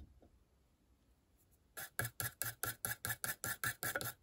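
Rapid back-and-forth scrubbing of an electronic speed controller's circuit board, cleaning it with isopropanol. The scrubbing is a run of even, rasping strokes at about five a second, starting a little under two seconds in.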